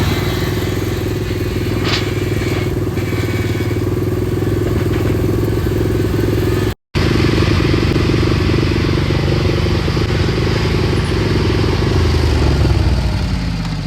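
Old riding lawnmower engine running steadily under load, with a brief break about seven seconds in. Near the end its pitch drops as it bogs down, close to stalling.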